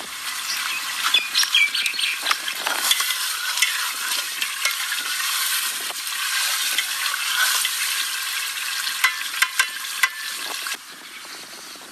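Food frying in a pan: a steady sizzle with scattered clicks through it, dropping away suddenly near the end.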